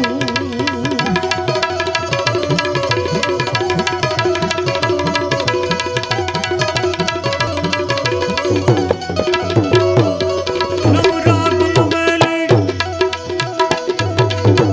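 Instrumental interlude of a Gujarati bhajan: rapid Indian hand-drum strokes over steady sustained melody notes. A held, wavering sung note fades out about a second in.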